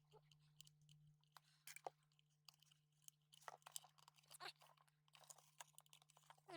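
Near silence: faint, scattered clicks and crackles of small-parts handling as hot glue is applied to a repaired microphone pack, over a low steady electrical hum.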